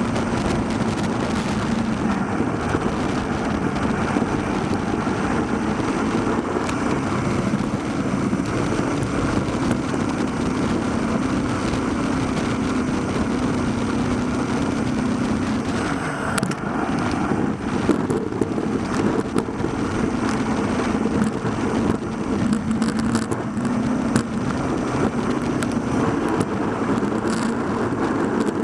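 Steady wind rush and road rumble from a moving road bicycle, heard through a handlebar-mounted camera-light's microphone, with occasional small knocks from about halfway on.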